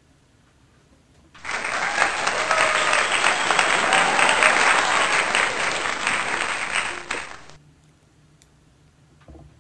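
Applause starting about a second and a half in and stopping about six seconds later. It sounds like a dense patter of many hands clapping, most likely a canned applause effect laid over the picture.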